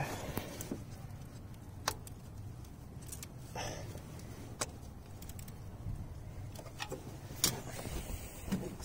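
A few scattered clicks and clinks of a wrench working the serpentine belt tensioner while the belt is slipped back onto the pulleys, over a faint low background hum.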